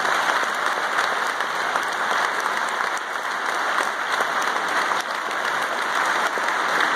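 Audience applauding steadily, a dense wash of clapping.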